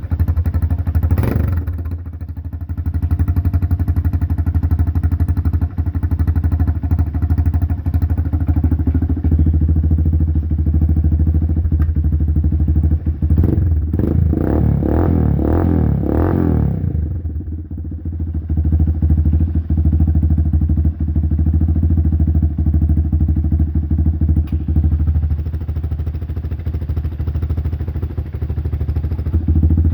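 Motorcycle engine with a homemade muffler idling with a low, steady exhaust note. It is revved briefly around the middle, then settles back to idle.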